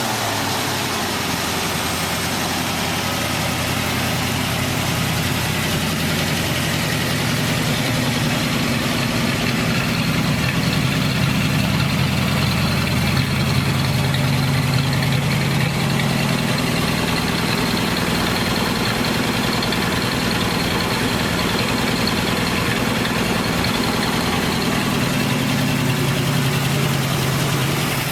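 The 390 cubic-inch V8 of a 1968 Ford Mustang GT390, idling steadily.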